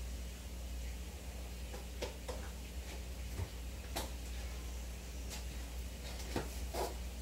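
Aquarium air-driven filtration: a steady low hum of the equipment, with scattered small pops and ticks of air bubbles breaking at the water surface at irregular intervals.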